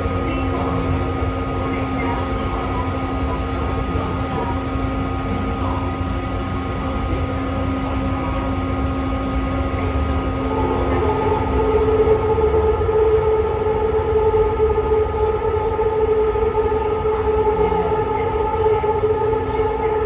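Metro train running on the Taichung MRT Green Line, heard from the front of the car: a steady low rumble of wheels on track with electric motor whine. About halfway through, a lower tone gives way to a louder, higher whine.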